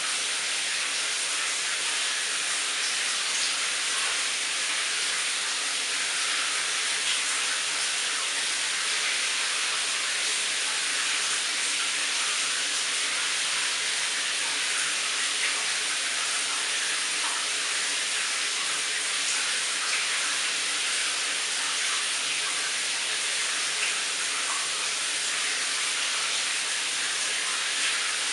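Shower running: a steady hiss of falling water spray.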